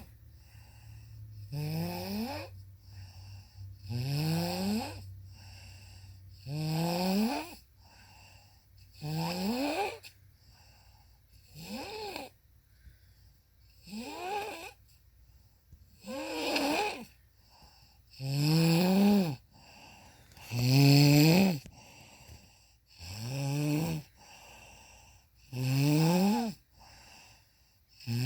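A woman snoring in a steady rhythm, about eleven snores roughly every two and a half seconds, each one rising in pitch. The snores in the middle of the stretch are the loudest.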